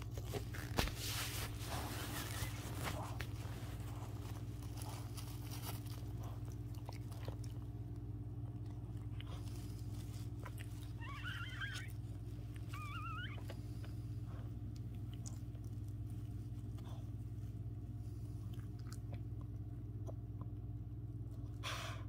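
Pomeranian mother licking and chewing at her newborn puppy, with wet clicking and crunching in the first few seconds. Around the middle come two brief, high, wavering squeaks from the newborn puppy, over a steady low hum.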